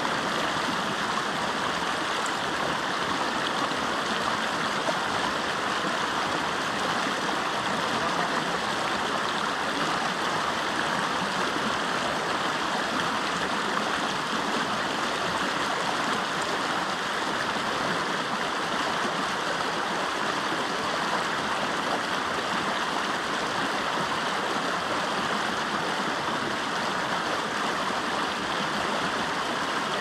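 Shallow mountain stream running over rocks, a steady rush of water.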